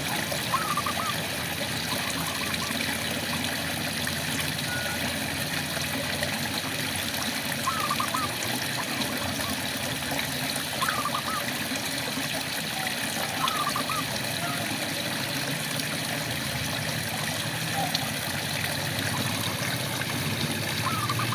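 Steady rain falling, with a frog giving short pitched calls about five times, a few seconds apart.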